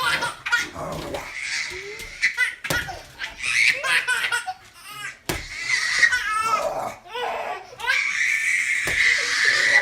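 A baby laughing hard in repeated peals, ending in one long high squeal of laughter.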